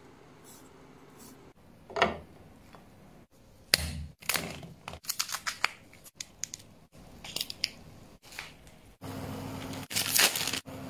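Kitchen scissors snipping through cooked shellfish shell in a quick run of sharp cuts. Near the end, a plastic packet is torn open and crinkled.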